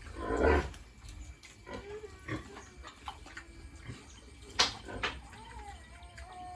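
Pigs grunting, with one loud grunt about half a second in and a few sharp knocks later, over a low background rumble.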